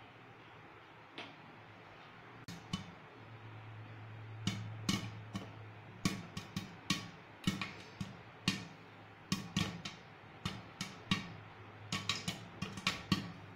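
Act II popcorn kernels popping in a covered pan, the pops hitting the glass lid. A few scattered pops come first, then they come faster and crowd together near the end. A steady low hum sits underneath.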